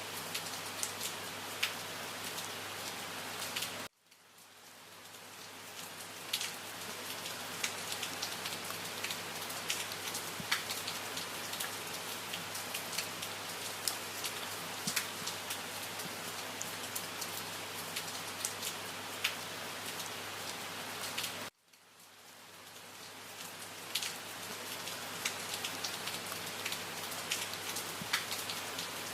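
Steady rain falling, with the ticks of individual drops over an even hiss. Twice the sound cuts out abruptly and fades back in over a couple of seconds: the seam where the rain recording loops.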